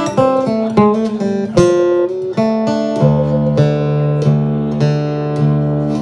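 Solo acoustic guitar playing a blues: quick single-note runs, then from about three seconds in a steady plucked rhythm over a ringing bass note.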